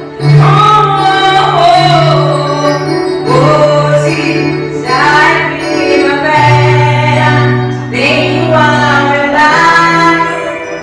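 A woman singing a slow song in phrases of a few seconds, over instrumental backing with held bass notes that change about two-thirds of the way through.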